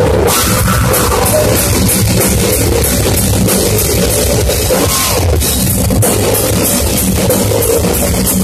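Heavy metal band playing live at full volume: fast drumming with cymbal hits over distorted electric guitars. The cymbals and fast drumming come in just after the start.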